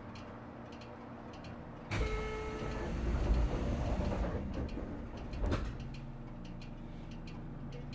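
Air-operated sliding doors of a JR Kyushu 813 series electric train closing: a sudden hiss of air with a brief tone about two seconds in, lasting about two seconds, then a thud at about five and a half seconds as the doors shut. A light steady ticking runs underneath.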